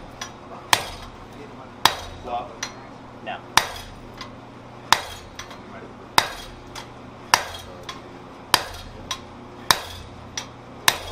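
Sledgehammer blows on a handled forging tool held against a glowing-hot swage block on an anvil, driving a depression into the block. There are nine sharp metallic strikes at an even pace of about one every second and a bit, with lighter taps in between.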